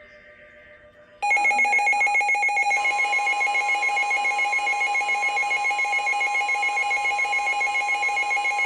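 NOAA weather radio receiver's alert alarm: a loud electronic alarm with a fast warble starts about a second in and holds steady, signalling that a new warning is coming in.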